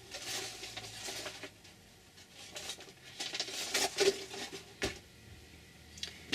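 Scratchy rubbing and rustling in short spells, from handling a red Distress ink pad and working it onto paper, with one sharp click about five seconds in.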